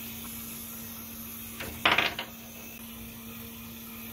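A brief clatter of small hard objects being handled, about two seconds in, over a steady low hum.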